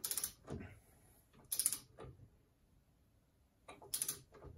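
Torque wrench clicking in three short bursts as it pulls the stainless drawbar of a small CNC mill tight, to a setting of 20 newton metres.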